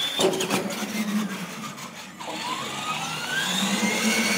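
R/C monster truck landing off the jump ramps with a few sharp knocks and clatter, then its electric motor and gears whining and rising steadily in pitch as it speeds up from about halfway through.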